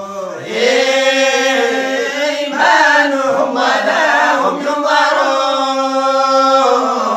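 A group of voices reciting the Quran together in unison, in a slow melodic chant with long held notes and short breaks between phrases.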